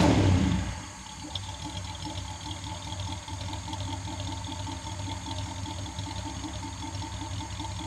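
Daimler SP250's 2.5-litre V8 dropping back from a rev within the first second, then idling steadily with an even, regular pulse.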